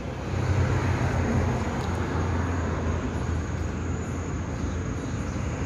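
Steady low rumble of road traffic on an urban street.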